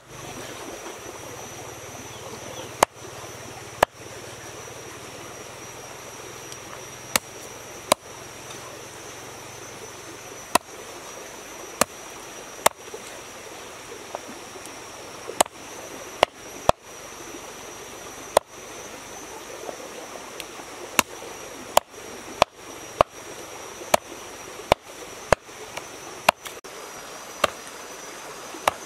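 Large knife chopping bone-in raw chicken thighs on a round wooden chopping board: sharp single chops at irregular intervals of about one to three seconds, more frequent in the second half, over the steady rush of a stream.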